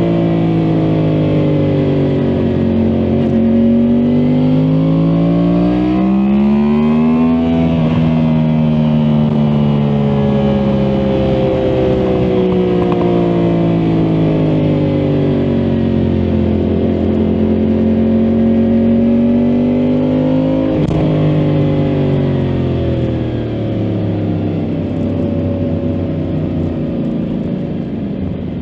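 Yamaha MT-10 SP's crossplane inline-four engine under way, its revs rising and falling. The pitch drops, climbs to a peak about seven seconds in, eases down slowly, then climbs again to a sudden snap near the top before falling away.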